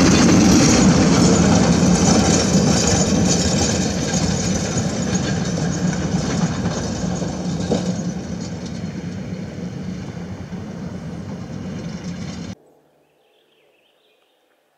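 A heavy logging truck's diesel engine and tyres on a gravel road as it passes close and pulls away, the noise fading steadily. It cuts off abruptly near the end, leaving only faint quiet.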